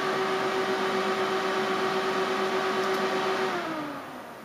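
Antec Kuhler 920 liquid cooler's two 120 mm radiator fans running at full power, very loud: a rush of air with a steady hum. About three and a half seconds in, the hum falls in pitch and the sound fades as the fans spin down to low speed.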